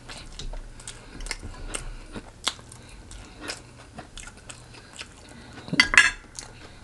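Close-miked chewing and biting into crispy fried chicken: a run of short crunchy clicks, with a louder crunch near the end.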